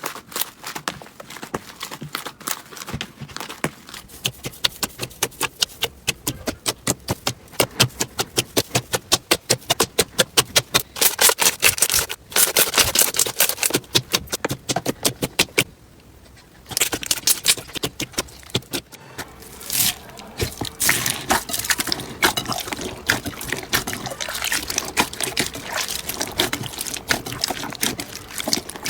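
Slime being handled, making rapid wet clicks and pops, in a fast even run of about five a second for a stretch, with a brief lull about sixteen seconds in.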